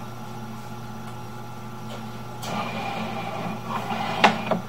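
Steady low mechanical hum from the sewer-camera setup, with rustling handling noise from about halfway and a few sharp clicks near the end, as the camera's push cable is drawn back through the sewer line.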